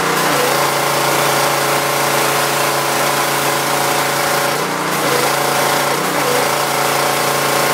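Pressure washer running while it sprays water into a car's engine compartment: a steady motor-and-pump hum under a loud hiss of spray. The hum's pitch shifts slightly a few times.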